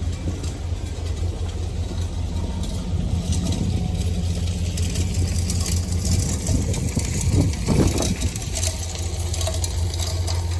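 Truck engine running with steady road noise while driving, a constant low hum under a spread of rumble.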